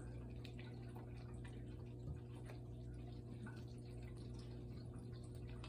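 Quiet room: a steady low hum with faint, scattered small ticks.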